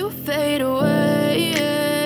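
A music excerpt: a melodic line with sliding pitches over sustained bass notes. It is played back through Sennheiser HD650 open-back headphones and captured with a dummy-head measurement microphone for a sound test.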